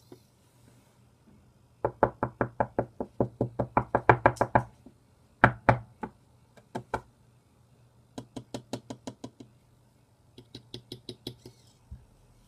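Knuckle knocks read by the piezo sensor of an Arduino knock lock: a long fast run of about twenty knocks at roughly eight a second, a few single knocks, then two shorter runs, the last one lighter.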